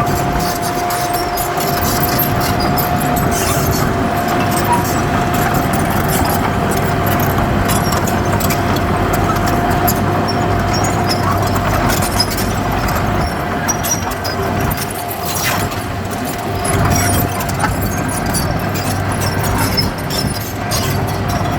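Heavy diesel earthmoving machinery running steadily, with a constant whine and scattered clanks and rattles.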